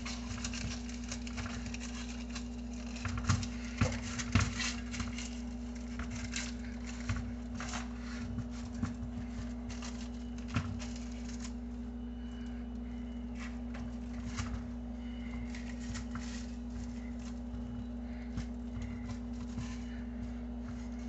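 A spoon pressing and patting potato dough flat in a parchment-lined pan: soft, irregular taps with paper crinkling, busiest in the first half and sparser later, over a steady low hum.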